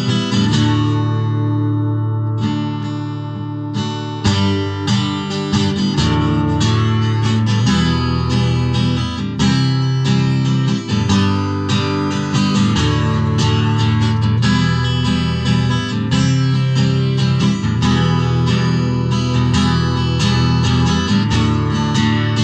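Music led by strummed acoustic guitar, with regular strokes and a steady beat.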